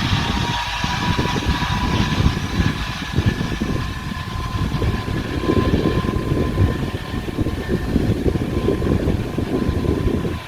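Wind buffeting the microphone in gusts, a low irregular rumble. Over it runs a faint steady engine-like drone that rises very slightly in pitch.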